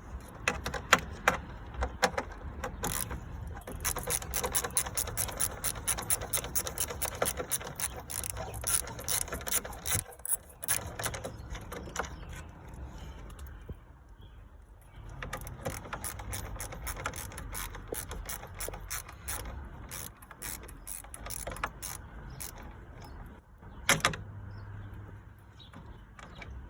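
Ratchet wrench clicking rapidly as bolts are loosened with a 10 mm socket, in two long runs with a short pause between, then a single louder knock near the end.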